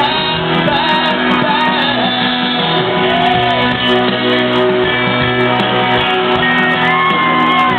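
A country band playing live, with a male singer and guitars. The sound is loud and dense and cut off in the highs, with the singer's held notes sliding near the end.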